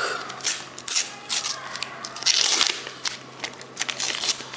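A Panini sticker packet being torn open and its stickers handled: a run of crinkling, crackling rustles with one longer tearing sound a little past halfway.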